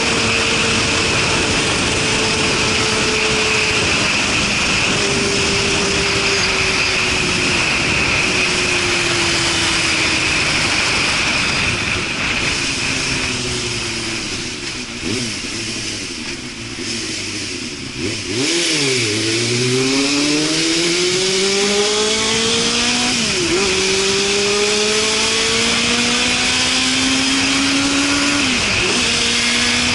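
Suzuki Katana motorcycle engine through a Super Combat aftermarket exhaust: the note falls slowly as the bike slows, is blipped a few times about halfway through, then climbs steadily as the bike pulls away, dropping in pitch at each of two upshifts. A steady rush of wind noise runs under the engine.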